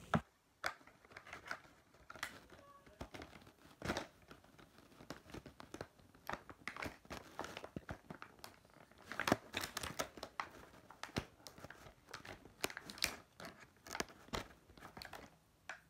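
Irregular crinkling and clicking of plastic being handled close to the microphone, with a string of short sharp clicks and rustles.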